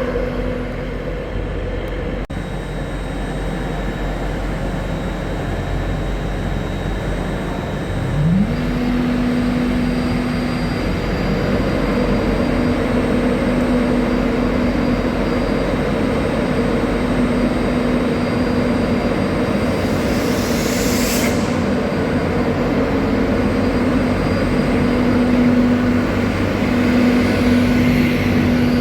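Trains standing and running at a main-line station platform: a steady low mechanical hum, with a tone that rises in pitch about eight seconds in and then holds steady. A short hiss sounds about two-thirds of the way through.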